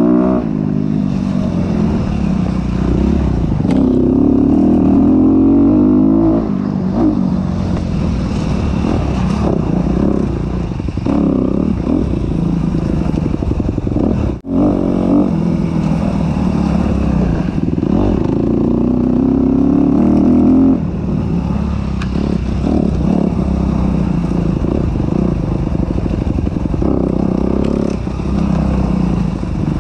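Honda CRF250RX dirt bike's single-cylinder four-stroke engine under load on a trail ride, revs rising and falling with the throttle. Twice the revs climb steadily for a few seconds. The sound cuts out for a moment about halfway through.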